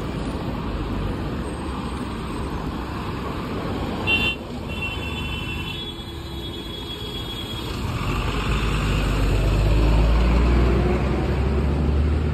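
Highway traffic noise with a vehicle horn: one short honk about four seconds in, then a held honk lasting about three seconds. From about eight seconds a heavy vehicle's engine rumble swells up close and becomes the loudest sound.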